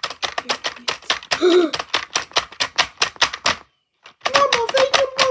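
Rapid, even tapping or clicking, about six strokes a second, which stops briefly a little under four seconds in. Near the end a voice hums a steady tune in a few held steps over the tapping.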